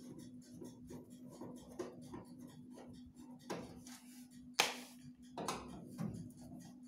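Small clicks and knocks of objects being handled, with one sharp click about four and a half seconds in, over a steady low hum.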